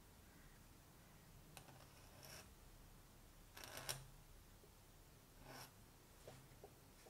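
Faint scratching of a Hunt 101 pointed steel dip-pen nib on paper as calligraphy strokes are drawn: a few short scrapes, the loudest near the middle, then two small ticks near the end.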